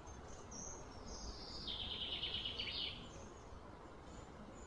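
A small bird singing one phrase: a thin high note sliding downward into a fast trill that lasts about a second, over a steady low outdoor background hum.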